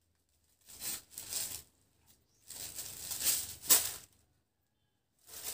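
Saree fabric rustling as it is unfolded and laid out by hand, in several swishes with quiet gaps between. The longest and loudest swish comes around the middle.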